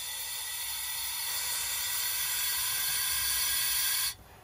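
Compressed shop air hissing through a boost leak detector's ball valve as it pressurizes a diesel truck's turbo intake system, growing steadily louder, then cut off suddenly near the end as the valve is shut.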